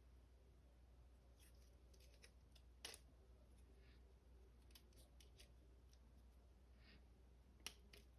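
Faint clicks of a plastic Transformers action figure's parts being worked by hand as the wing assembly is forced into place, with a sharper click about three seconds in and another near the end; otherwise near silence.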